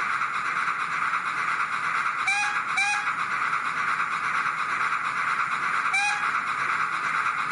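Soundtraxx Econami UK Steam sound decoder in a Hornby P2 model locomotive, running forward on a rolling road and playing a steady hissing rush of steam-locomotive sound through its small speaker. Three short high chirps break in, about two, three and six seconds in.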